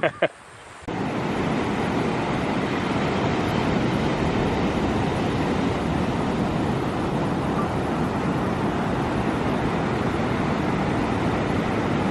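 Steady rushing noise with no distinct events, starting abruptly about a second in.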